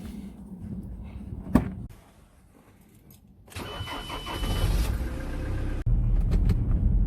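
A car door shuts with one sharp knock, then after a short pause the car's engine is cranked and starts, with a steady beep from the dashboard, and settles into a low, steady idle.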